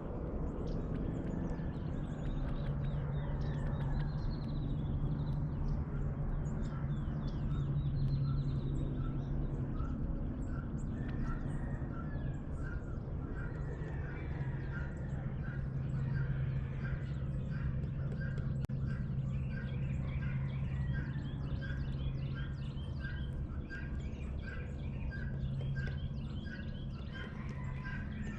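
Dawn bird chorus: many small high chirps, and from about a third of the way in one bird repeating a short call roughly one and a half times a second, over a steady low hum.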